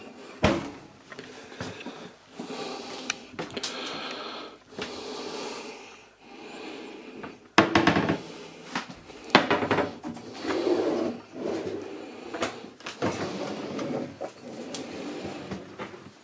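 Wooden galley cupboard doors and drawers being opened and shut, with rubbing and clunks and a few sharp knocks, the loudest about halfway through.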